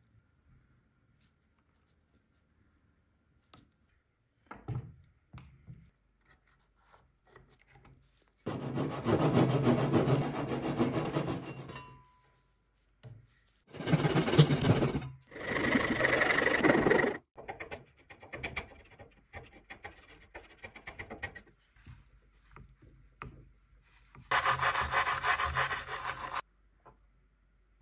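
A handsaw cutting through the end of an old wooden piece in three bursts of strokes through the middle, with light knocks and handling of wood between. Near the end comes a shorter burst of scraping on a wooden board.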